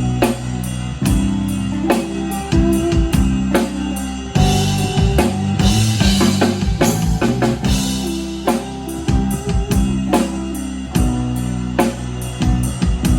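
Live band playing an instrumental passage without vocals: drum kit keeping a steady beat under bass and guitar, with cymbals washing in about four seconds in.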